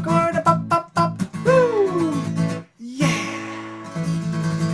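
Taylor acoustic guitar strummed in a quick rhythm under a man's singing, his voice sliding down in a long "woo" about one and a half seconds in. After a brief break, a final chord is strummed about three seconds in and left ringing.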